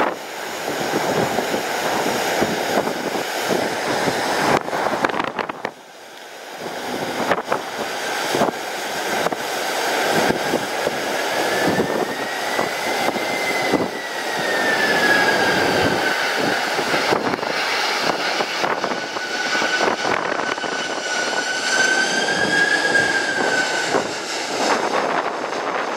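Jet airliner on landing approach: its engines' whine comes in a few seconds in, rising, falling and wavering in pitch as it passes. Strong gusts of wind buffet the microphone throughout.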